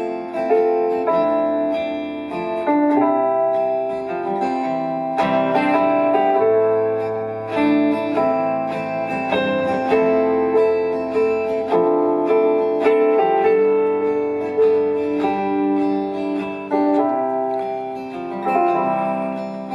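A live band plays a song's instrumental introduction, led by guitar, with ringing chords that change every second or so over a steady bass line.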